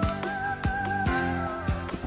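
Background music with a steady drum beat and a melody line.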